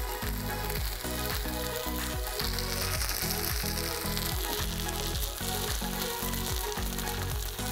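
Millet dosa batter sizzling and frying in oil in a nonstick pan. Background music with a repeating bass line plays underneath.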